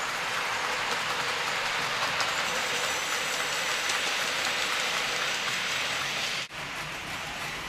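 Model railway freight wagons rolling along the track: a steady hiss of small wheels on rail, with a brief sharp drop about six and a half seconds in.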